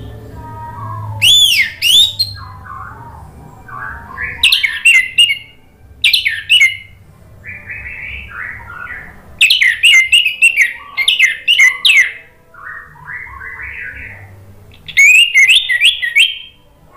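Orange-headed thrush singing: loud, varied whistled phrases of fast up-and-down sweeping notes, coming in bursts of about a second with short pauses, with softer, lower chattering notes between the phrases.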